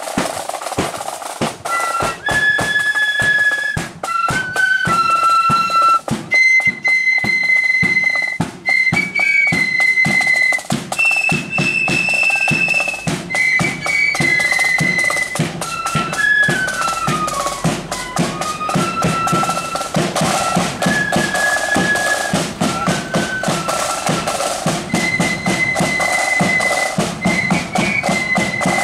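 Marching flute band playing a tune: many flutes in unison carry a high melody over snare drums beating a steady march time. The drums roll alone at first, and the flutes come in after about two seconds.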